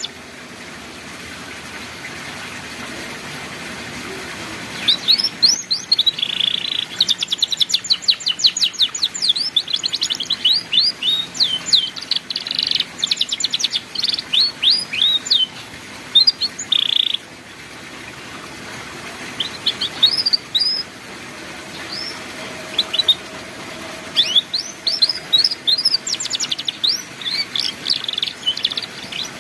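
Canary singing in the rapid ngeriwik style: quick runs of fast downward-sweeping chirps and trills, beginning about five seconds in and pausing for a few seconds in the middle.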